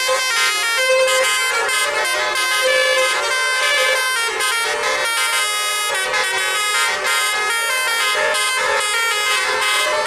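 Tour bus telolet horn, a multi-tone horn, playing a continuous run of melodic notes that change pitch every half second or so.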